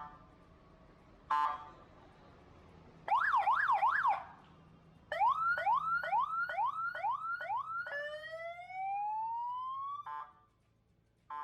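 12V 50W horn-speaker electronic siren being tested through its tones. A short beep about a second in, then a fast up-and-down warble for about a second, then a run of quick rising whoops, about two and a half a second, then one long, slow rising wail that cuts off, followed by short beeps near the end.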